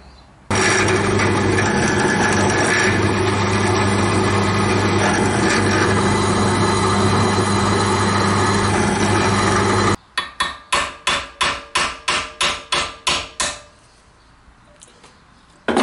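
Drill press running steadily as it drills a hole through a metal ring press-fitted on a bolt, cutting off about ten seconds in. Then a quick run of about fourteen light hammer blows, about four a second, on the rivet pin set in the drilled hole.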